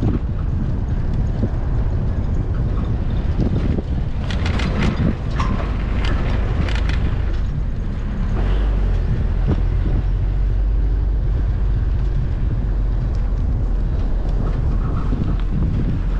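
Steady low rumble of wind on the microphone, with a few short sharper noises between about four and seven seconds in.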